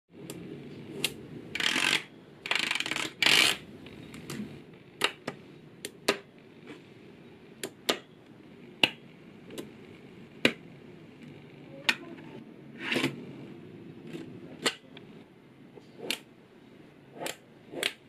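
Small magnetic balls clicking sharply as slabs of them are snapped together, at irregular intervals, with a few short rattling bursts as rows of balls slide and roll against one another, the longest near 2, 3 and 13 seconds in.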